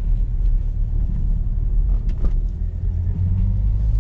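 A 2000 Toyota Celica GTS heard from inside the cabin while driving: a steady low road and engine rumble with a few faint, scattered knocks from the suspension. The rattle comes from a very worn sway bar end link.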